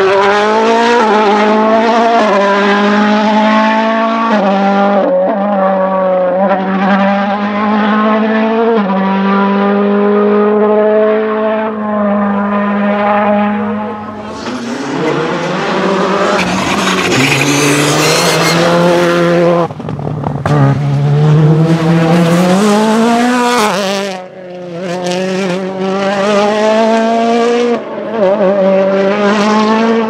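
Rally car engines at full throttle, the note climbing and then dropping at each upshift through the gears. About halfway through a car passes close, which is the loudest and harshest part. After that the engine note keeps rising and falling with further gear changes.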